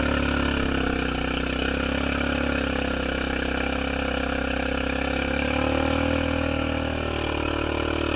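Honda Rubicon ATV's single-cylinder engine running steadily under load, churning through deep mud in second gear. Its pitch dips and rises a little about two-thirds of the way through.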